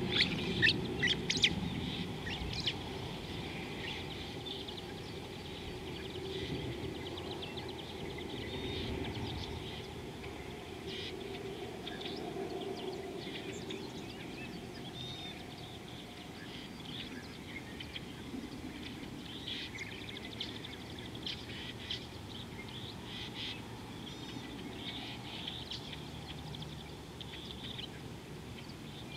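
Several birds chirping and calling, many short high calls scattered throughout, loudest and densest in the first few seconds, over a steady low background noise.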